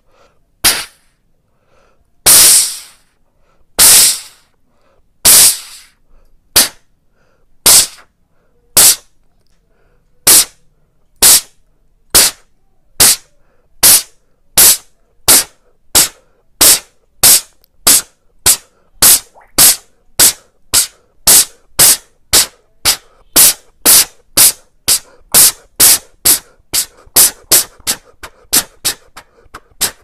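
Vocal imitation of a steam locomotive chuffing: a man blowing sharp, breathy puffs through cupped hands, starting slowly at about one every second and a half and speeding up steadily to three or four a second, like a locomotive pulling away and gathering speed.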